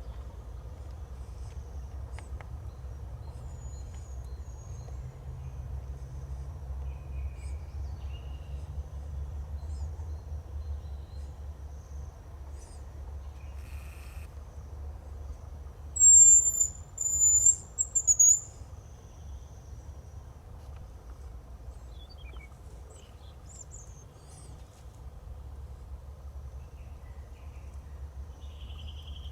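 Hazel grouse singing once: a very high, thin whistle in three parts, a long note followed by two shorter ones, about halfway through. Faint high chirps of other small birds come and go over a steady low background rumble.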